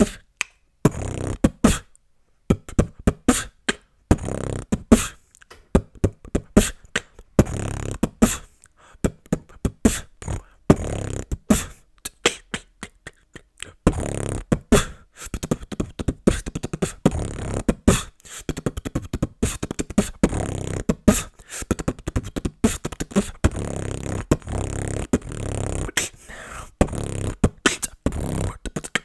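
Solo freestyle beatboxing into a close condenser microphone: rapid mouth-made kick drums, snares and hi-hat clicks with bass hums between them, in a fast uneven rhythm that pauses briefly near the start.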